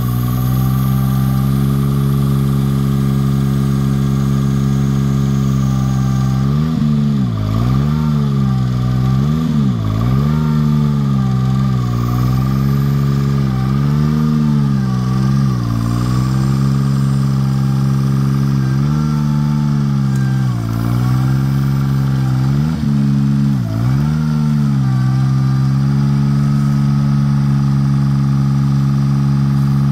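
Bucket truck engine running steadily to drive the boom's hydraulics. Its pitch dips briefly and recovers about ten times through the middle stretch as the boom is moved and the hydraulics take load.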